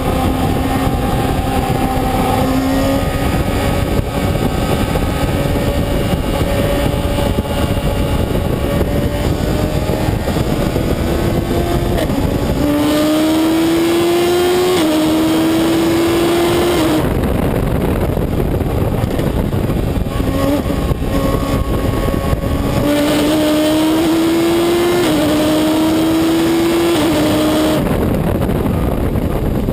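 Reynard Inverter sports racer's engine, heard from the cockpit under hard acceleration: the pitch climbs, drops sharply at each upshift and climbs again, twice over, with an easing off between. A steady rush of wind and road noise runs underneath.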